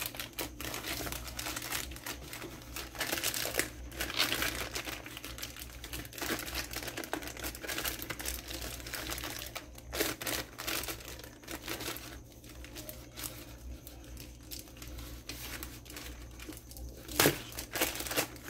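Plastic courier mailer bag crinkling and tearing as it is pulled open by hand. A sharp knock sounds near the end.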